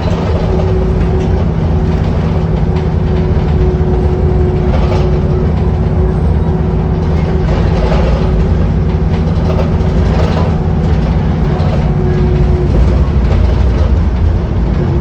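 Inside a VDL Wright Pulsar 2 single-deck bus under way: the engine drones steadily and loudly. A steady whine sits over it and stops about thirteen seconds in.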